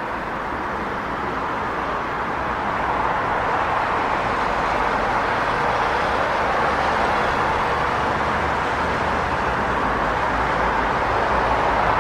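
Steady traffic noise of a busy city street, an even roar of passing cars with no single vehicle standing out, growing a little louder a few seconds in.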